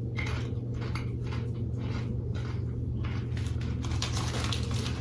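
Barbecue potato chips crunching as they are chewed: a string of short, irregular, crisp crackles over a steady low hum.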